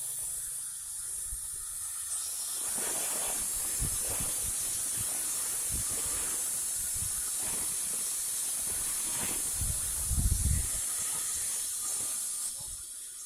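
Steady hissing noise, thickening into a louder rush for most of the stretch, with scattered low knocks and a brief heavy low rumble about ten seconds in.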